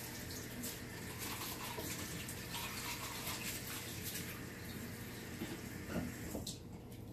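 Kitchen tap running water in a steady splash, then turned off about six seconds in.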